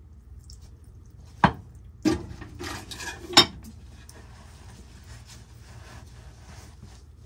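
Metal clanking and clattering: three sharp clanks within about two seconds with rattling between them, as heavy tools and pipe parts are handled and set down.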